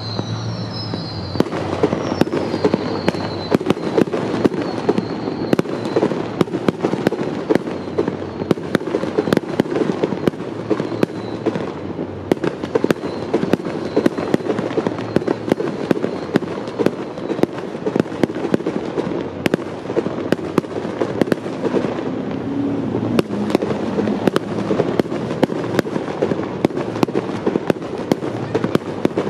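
Fireworks display: a rapid, unbroken run of bursting shells and crackling reports, with many sharp louder bangs standing out, starting about a second and a half in.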